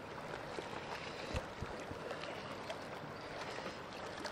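Steady outdoor background noise of wind and lake water at the shoreline, with a few faint knocks from handling, the clearest about a second and a half in.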